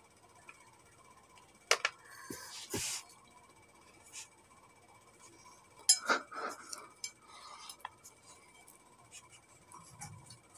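Handsfree eating of a banana: scattered sharp clicks and knocks with a short rustle of peel, the loudest clicks about two seconds and six seconds in.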